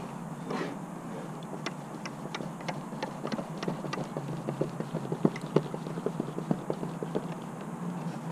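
Light, irregular clicking and tapping of a thin metal hand tool working against the RV door's plastic window frame, a few clicks a second, over a faint steady hum.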